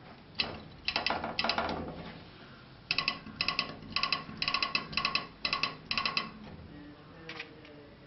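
Cup wheel of a pygmy current meter spun by hand, its mechanism clicking with a slight metallic ring: a quick clatter in the first couple of seconds, then an even run of clicks about two a second that stops about two seconds before the end.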